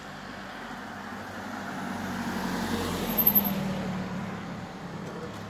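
A car driving past on the street, growing louder to a peak about three seconds in and then fading away.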